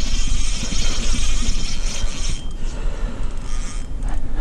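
Steady rumbling, rustling noise without a voice while an angler shifts on a grassy riverbank fighting a hooked king salmon on a bent rod; it dips briefly twice in the second half.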